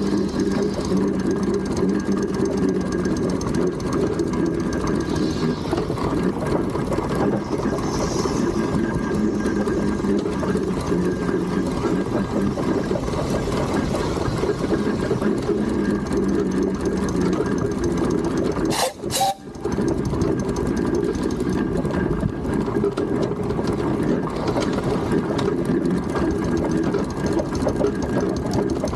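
Steam traction engine running steadily on the move: a dense, rapid mechanical ticking over a steady hum. The sound cuts out briefly about two-thirds of the way through.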